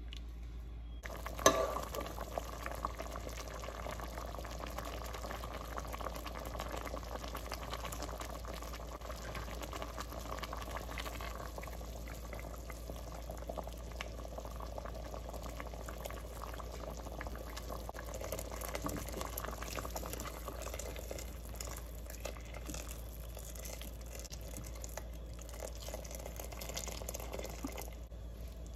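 Tapioca pearls boiling in a pot of starchy water, with a steady bubbling and crackling as they are stirred with a spoon. One sharp knock about a second and a half in.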